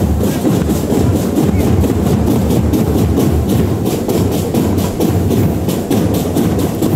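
Marching band drums playing a fast, steady rhythm, with heavy bass drum and strokes repeating several times a second.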